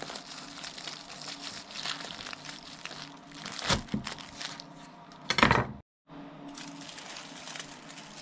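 Aluminium foil crinkling and crackling as a foil-wrapped burrito is handled and cut through, with two louder crunches about three and a half and five and a half seconds in. The sound drops out for a moment shortly after the second crunch.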